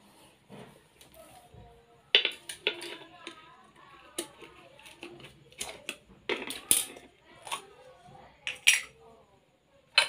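Sharp metallic clinks and taps from handling a tin of contact cement and its metal lid, as it is picked up and opened, coming irregularly, the loudest about two seconds in and near the end.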